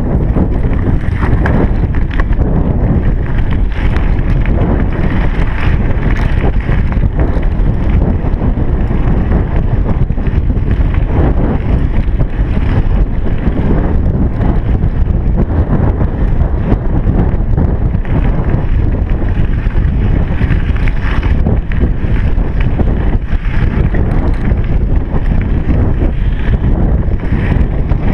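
Wind buffeting the microphone of a chest-mounted GoPro Hero3 on a moving bicycle: a loud, steady low rumble with small irregular knocks from the ride.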